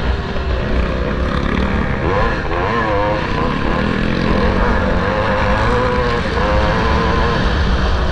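1974 Maico 440 two-stroke single-cylinder motocross engine running under racing load, its pitch rising and falling again and again as the throttle is worked. Heavy low wind rumble on the microphone underneath.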